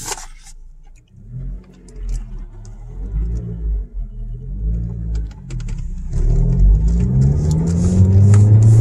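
Ford Focus SVT's 2.0-litre four-cylinder engine heard from inside the cabin, its pitch rising and falling several times, then climbing steadily under acceleration from about six seconds in and holding high near the end.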